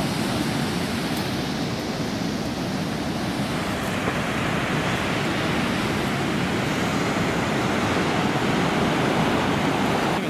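Ocean surf washing on a beach, a steady rushing noise without breaks that grows slightly louder toward the end.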